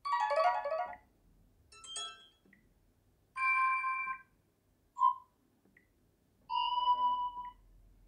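Sony Xperia 1 VI notification sounds previewed one after another: five different short electronic chimes and tones, each lasting under a second, with short gaps between them.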